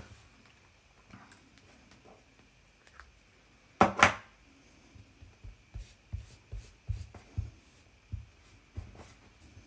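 Handling of double-sided tape and small paper pieces: a short, loud rustle about four seconds in, then a run of soft taps and knocks on the work surface.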